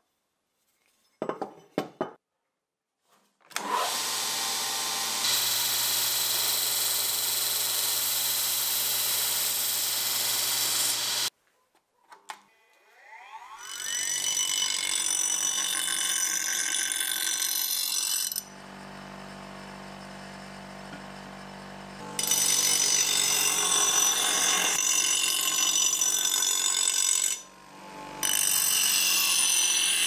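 Pro-Craft bench grinder spinning up with a rising whine, then grinding the edge of a steel cleaver blade, loud while the blade bears on the wheel and dropping back to the lower motor sound between passes. Earlier, a few knocks and a stretch of steady power-tool noise.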